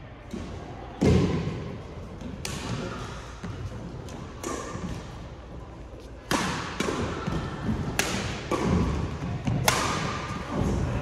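Badminton rackets smacking the shuttlecock back and forth in a rally, a sharp hit every one to two seconds, each echoing around the hall. Heavy thuds of feet landing on the court come in between.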